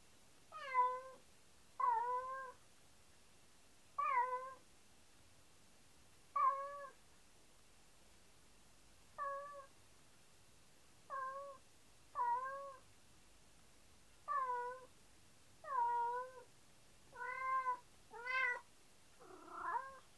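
Domestic cat meowing over and over: about a dozen short rising-and-falling meows a second or two apart, coming faster near the end. It is the sad, lonely crying the owners hear when they leave the room, which they take for separation anxiety.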